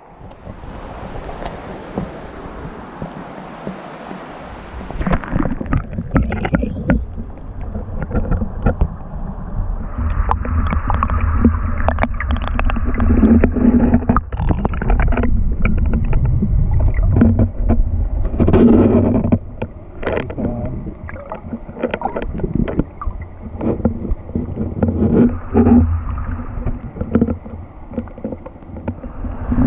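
Flowing river water: a steady rush at first, then from about five seconds in the muffled underwater rumble and gurgle of the stream heard through a submerged waterproof camera housing, with many knocks and clicks against the housing.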